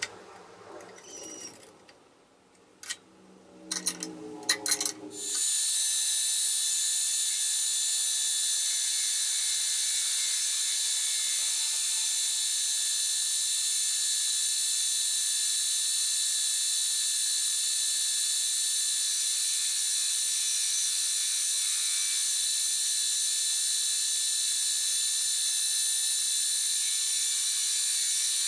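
A few metal clinks and knocks as the setup is handled. From about five seconds in, a milling machine cuts the steel rail with a horizontal arbor cutter, giving a steady, high-pitched hissing whine that holds unchanged.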